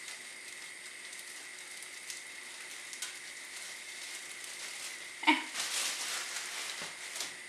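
Melted butter sizzling faintly in a saucepan on a gas hob as digestive biscuit crumbs are poured in from a plastic bag. About five seconds in, a sharp ringing knock on the pan, then a second or so of rustling and scraping as a wooden spoon goes in.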